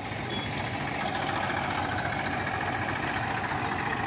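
Tractor diesel engine idling steadily at low revs, a little louder from about half a second in.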